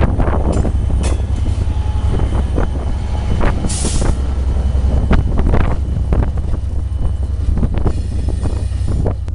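Freight train rolling past: a heavy steady rumble with irregular clanks and knocks from the wheels and cars, and a short hiss about three and a half seconds in.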